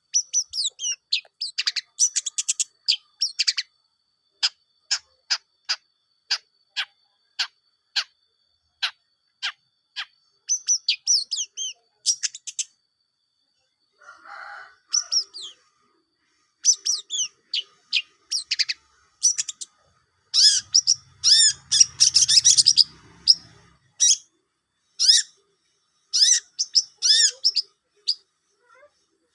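A songbird calling in a long series of sharp, high, downward-sweeping chirps, at first about two a second, then in quicker runs that are busiest about twenty seconds in.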